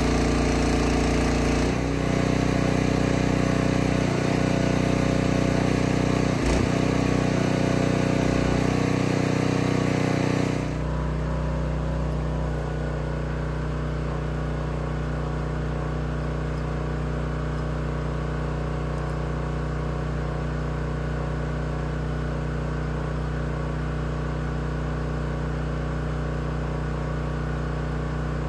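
Small engine powering a log trailer's hydraulic crane, running steadily under load as the crane works. About ten seconds in the sound drops abruptly to a quieter, even engine note.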